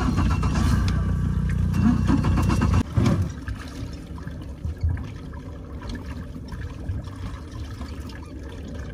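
Boat engine running with a steady low hum, dropping away suddenly about three seconds in. Afterwards there is a quieter wash of water trickling and lapping.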